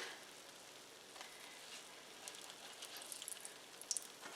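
Toutons (pizza dough) frying in hot oil and butter in a pan: a faint steady sizzle with scattered small crackles, more of them about two to four seconds in.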